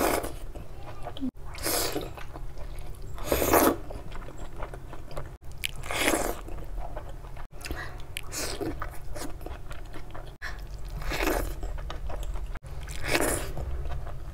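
Close-miked eating sounds: wet bites and chewing of curry-soaked rice and egg eaten by hand, coming in separate bursts every second or two over a steady low hum. The run is broken by several brief dropouts where short clips are cut together.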